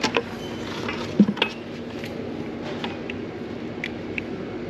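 Big-box store background hum with scattered light clicks and clinks, and a sharper knock about a second in.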